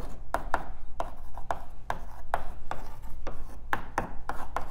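Chalk writing on a blackboard: an irregular run of sharp taps and short scrapes as each stroke of an equation goes down, about three a second.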